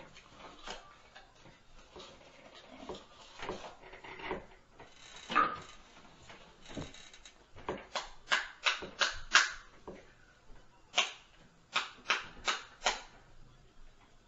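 Sharp knocks, scattered and faint at first, then two quick runs of five or six knocks each, at about four a second, in the second half.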